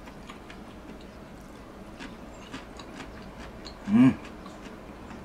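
Faint scattered clicks and taps of someone eating, then, about four seconds in, one short, loud vocal sound that rises and falls in pitch.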